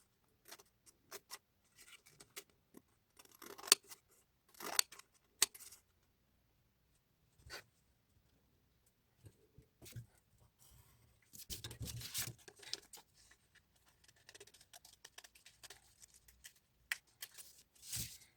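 Scissors cutting paper: a series of short snips and rustles, in irregular clusters with a pause of a few seconds in the middle.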